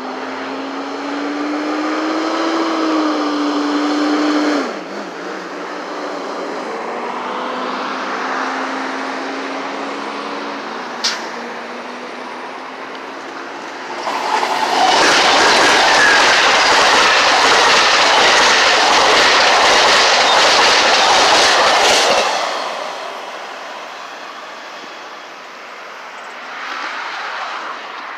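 Passenger train hauled by two GE P42DC diesel-electric locomotives, sounding two long horn blasts as it approaches. It then passes close by at speed in a loud rush of about eight seconds, and the sound fades as it goes away.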